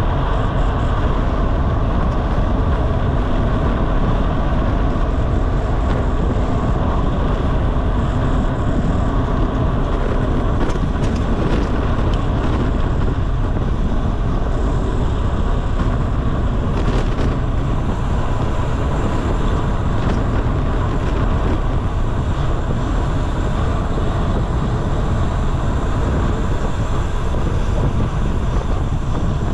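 Steady rush of wind on the microphone mixed with the tyre and road noise of a road bicycle descending at speed, with a few brief clicks near the middle.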